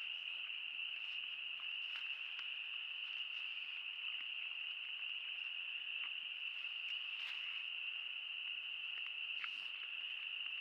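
Steady, unbroken high-pitched chorus of insects such as crickets, with scattered faint clicks and rustles.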